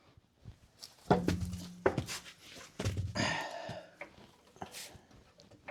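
Several sharp knocks and thunks from work on a truck wheel, with a person grunting and breathing hard with effort in between.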